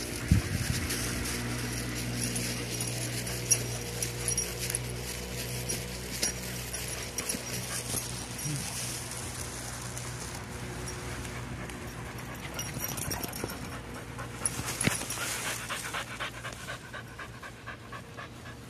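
Shiba Inu panting, in quick, even breaths that are most distinct near the end.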